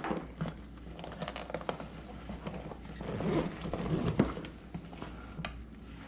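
Close handling noise: rustling and scraping with small clicks and knocks as things are moved about, busiest and loudest around three to four seconds in, with one sharper knock near the end of that stretch.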